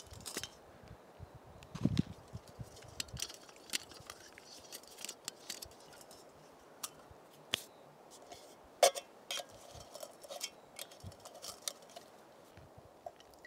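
Jetboil camp stove being unpacked and fitted together by hand: scattered clicks, clinks and light knocks of metal and plastic as the cup, burner and fuel canister are handled and joined, the loudest a sharp clink about nine seconds in.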